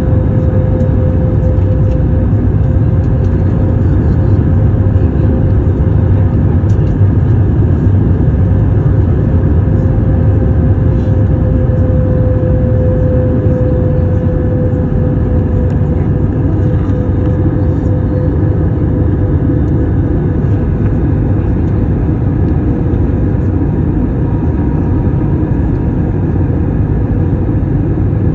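Cabin noise in an Airbus A321 on approach: a steady rumble of engines and rushing air, with one droning tone held over it that sags slightly about halfway through.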